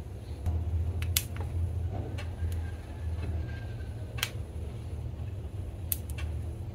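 Steady low hum with a few sharp clicks scattered through it.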